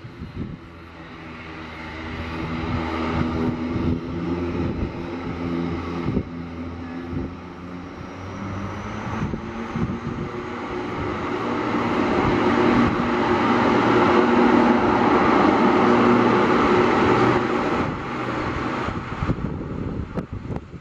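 ATR turboprop airliner's engines and propellers running as it moves past on the ground. It is a steady propeller drone with a hum underneath that grows louder to a peak in the second half, then eases off near the end.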